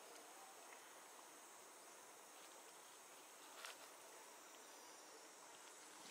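Near silence: a faint, steady outdoor background hiss, with one soft click about three and a half seconds in.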